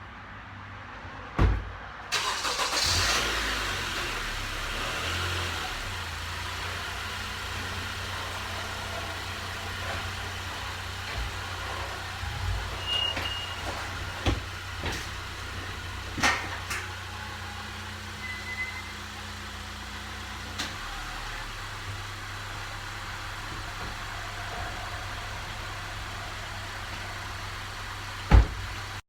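2016 Honda Accord engine starting about two seconds in, then idling steadily on its fresh oil after an oil change. A few sharp knocks sound over it, one just before the start and the loudest near the end.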